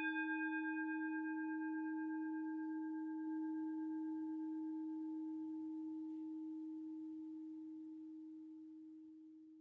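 A singing bowl ringing out after a single strike: one low steady tone with a few fainter higher overtones that die away first, the whole fading slowly.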